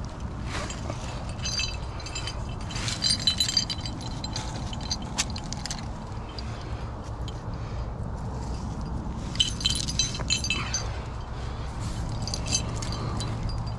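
Metal climbing gear on a harness, carabiners and quickdraws, clinking and jangling in several bursts of bright metallic ringing.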